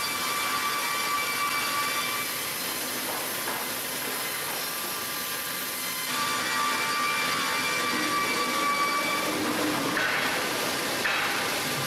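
Heavy wood-cutting machinery running with a loud rushing noise and a steady high whine. The whine drops out for a few seconds and comes back about six seconds in, with short harsher bursts near the end.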